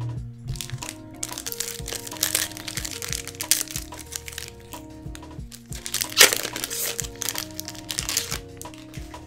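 A One Piece Card Game foil booster pack wrapper crinkling as it is torn open, with a loud crackle about six seconds in, over background music.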